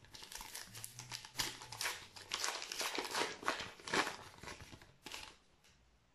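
Topps Match Attax trading-card pack wrapper being torn open and crinkled by hand: a run of crackling rustles that dies away about five seconds in.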